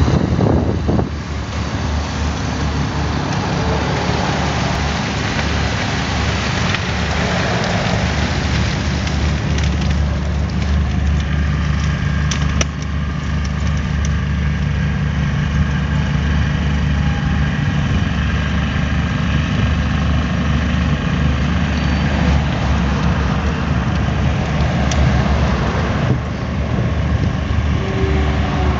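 Caterpillar mini excavator's diesel engine running steadily as it pushes a gravel shoulder spreader, with a hiss of gravel pouring from the tipped box onto the road shoulder.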